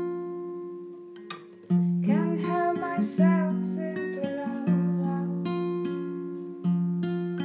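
Acoustic guitar played with ringing chords and fresh attacks, and a voice singing a short phrase over it from about two seconds in.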